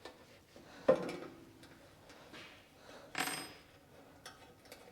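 Small metal handling sounds as a tiny Allen screw is taken out of a mini metal lathe's gear cover: a sharp knock about a second in, then a clink that rings briefly past the three-second mark.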